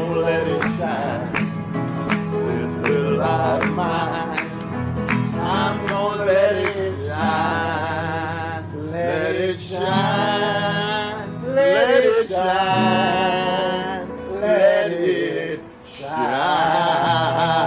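Live band playing a gospel song: guitar and a bass line under a lead melody that wavers with vibrato and slides up and down in pitch, without sung words. The music drops away briefly near the end, then comes back in.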